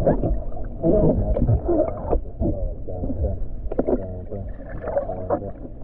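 Muffled water sloshing and splashing in a swimming pool, with warbling voice-like sounds over a low rumble.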